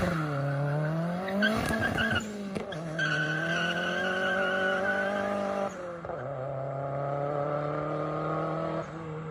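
A small hatchback's engine accelerating hard away from a launch-control start. Its pitch climbs and drops back with gear shifts near the start, about two and a half seconds in and about six seconds in, and it grows fainter as the car pulls away.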